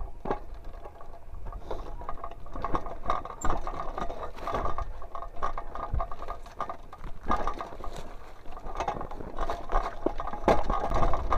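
Mountain bike rattling and clattering over a rough dry dirt singletrack, with quick ratchety clicking from the drivetrain and a steady low rumble underneath.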